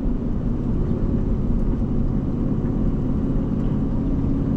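Pickup truck engine and road noise heard from inside the cab while driving in tow mode, a steady low drone.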